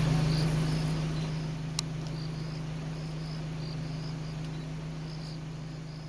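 Crickets chirping, short high chirps repeating irregularly, over a steady low hum, the whole slowly fading out.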